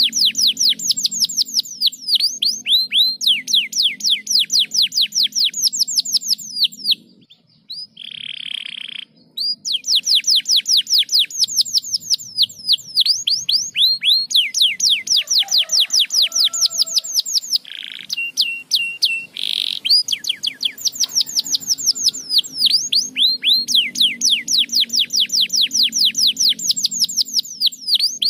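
Domestic canary singing long, rapid trills of repeated falling whistles, about six notes a second. A buzzy note and a few short held notes come in the two brief breaks, about a quarter and two-thirds of the way in.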